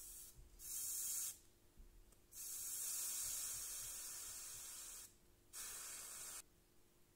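Wet sponge hissing against the hot tip of a switched-off soldering iron as its water flashes to steam, cooling the iron. The hiss comes in three bursts: a short one, a longer one of about three seconds, then a short one near the end.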